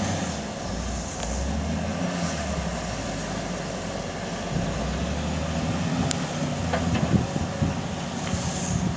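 Diesel engines of heavy earthmoving machines (excavator, wheel loader, dozer) running steadily at a distance, with a sharp click about six seconds in and a few short knocks a second later.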